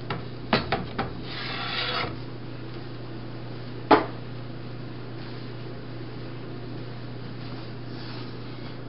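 Objects being handled at a kitchen counter: a few clicks and knocks in the first second, a brief scraping after that, and one sharp knock about four seconds in. All of it sits over a steady low hum.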